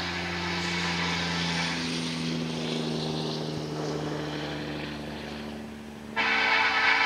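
BNSF diesel locomotives of an empty coal train approaching at speed, a steady engine and rail drone. About six seconds in, the locomotive air horn starts a loud, held blast, the warning for the grade crossing.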